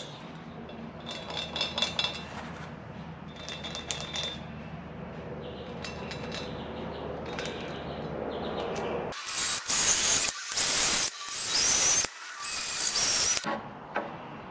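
Cordless drill boring into a wooden board in four short bursts from about nine seconds in, drilling holes for carriage bolts. Before that, only a few light handling clicks.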